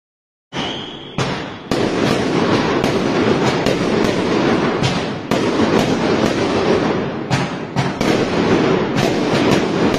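A barrage of fireworks going off: a short whistle about a second in, then dense, continuous crackling and popping from many bursts at once.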